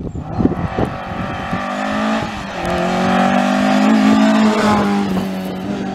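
Ford Escort Mk1 rally car's engine running hard at high revs as the car climbs the stage, with a few sharp cracks in the first second. There is a brief drop in pitch about two seconds in as it changes gear, then the engine note rises and holds steady.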